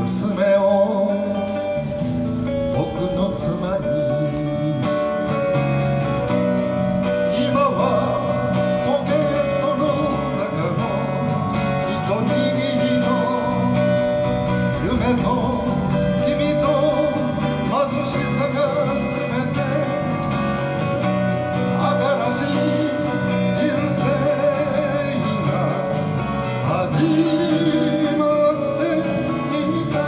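Live acoustic guitar and electric bass playing a slow folk song, with a voice singing over them.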